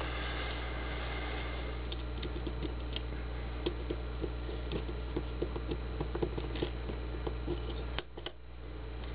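Small metal tool tapping and scraping against a lock cylinder in a run of light, irregular clicks while trying to press down its spring-loaded retaining pin, with one sharper click near the end.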